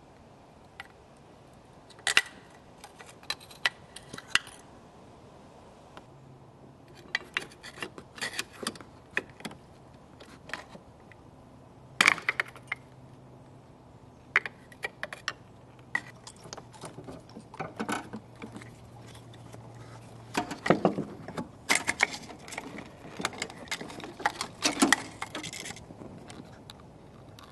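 Irregular sharp clicks, clinks and rattles of hands working the plastic spark plug connectors and ignition leads on a Mercedes M112 engine, in several clusters.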